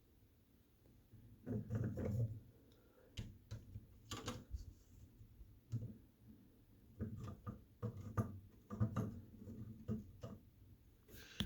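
Plastic Lego figures being handled and set down on a hard surface: scattered clicks and light knocks, in uneven clusters.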